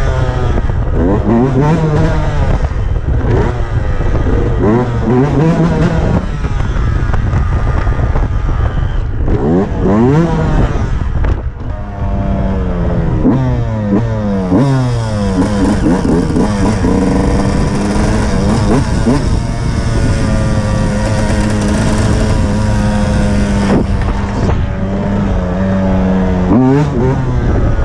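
Yamaha YZ125's two-stroke single-cylinder engine under way, revving up and falling back again and again, then held at a steady pitch for several seconds about halfway through.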